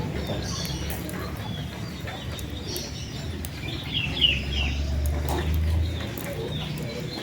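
Outdoor ambience: birds chirp briefly about four seconds in over a steady low rumble, with scattered faint ticks.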